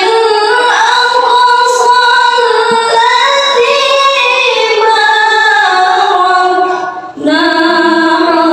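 A female reciter (qari'ah) chanting the Qur'an in melodic tilawah style into a microphone. She holds one long, ornamented phrase whose pitch slowly rises and falls, breaks off for a breath about seven seconds in, and starts the next phrase on a lower note.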